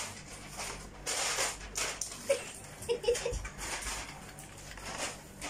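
A child's breathy, stifled giggling: a run of short airy puffs of breath with a few faint voiced squeaks.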